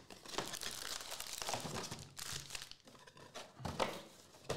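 Foil-wrapped Panini Prizm trading card packs crinkling and rustling as they are handled, lifted out of the cardboard box and stacked, in several uneven spells.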